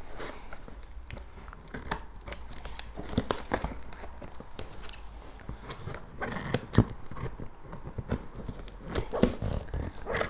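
Packing tape on a cardboard parcel box being cut and pulled open by hand: irregular scratching, crinkling and tearing, with scattered sharp clicks, the loudest about two-thirds of the way through.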